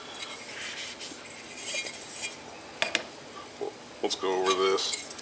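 Pieces of a hard-anodized aluminium backpacking cookset being handled: pot and lid clinking, rubbing and scraping against each other. Sharp clinks come about three and four seconds in.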